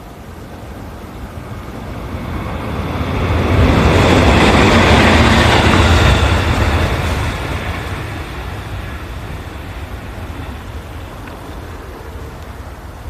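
A train passing by: a rushing rail noise that builds up, is loudest from about four to seven seconds in, then slowly fades away.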